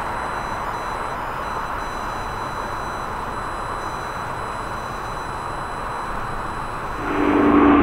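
Distant jet engine noise from a twin-engine wide-body airliner climbing away after take-off, heard as a steady, even noise. About seven seconds in it switches abruptly to a louder, closer jet departure with a steady whine in it.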